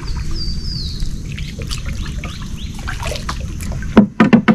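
Wooden paddle boat being paddled, with water sounds and small knocks against the hull, and a bird giving two short falling whistled notes in the first second. About four seconds in, a few loud wooden knocks as the paddle is put down in the boat.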